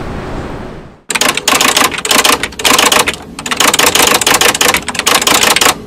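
Edited-in sound effect: a loud, dense, rapid crackling rattle. It starts about a second in, after the outdoor background fades out, and stops just before the end, with a few brief breaks.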